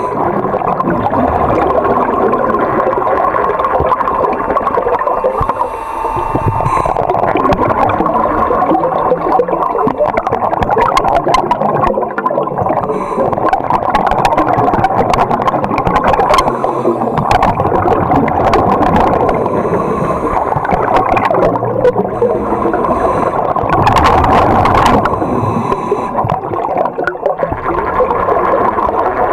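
Underwater sound as picked up by a submerged camera: a continuous gurgling and bubbling of exhaled air rising through pool water, with scattered sharp clicks.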